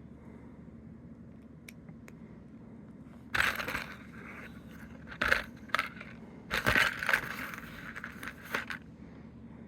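Plastic Lego minifigure blind bag being crinkled and torn open, in a few short loud bursts, the biggest about three and a half and seven seconds in.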